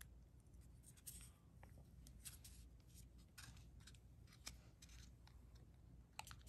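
Faint handling noise: fingers rubbing and tapping a smartwatch in its soft white protective sleeve, with scattered small clicks, a little stronger about four and a half and six seconds in.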